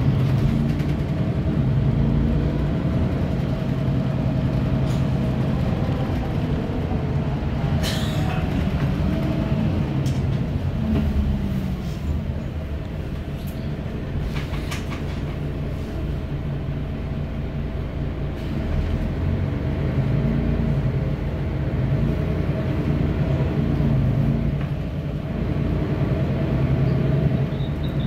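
Mercedes-Benz Citaro O530 city bus heard from inside the passenger cabin while under way: the diesel engine runs steadily with tyre and road noise, easing off for a while in the middle and pulling harder again after. A few short knocks and rattles from the cabin come about eight seconds in and again around fifteen seconds.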